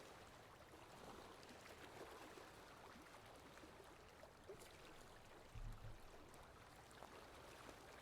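Faint water lapping with light crackling ripples and wind, with a brief low gust-like rumble about five and a half seconds in.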